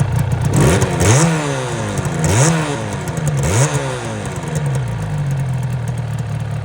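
Two-stroke motorcycle engine revved three times, each blip rising and falling in pitch about a second apart, then settling to a steady idle.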